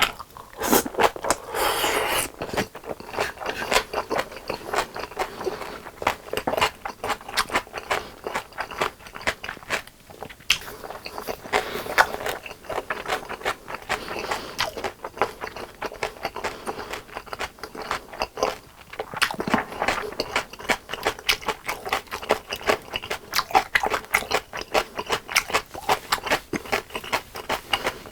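Close-miked crunching and chewing of crispy fried chicken: a steady run of sharp crunches, with heavier bites every few seconds.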